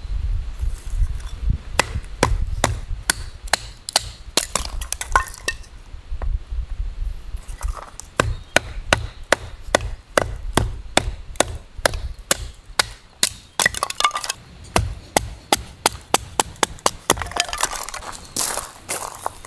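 A knife chopping on a wooden board: a long run of quick, irregular sharp knocks, about two to three a second.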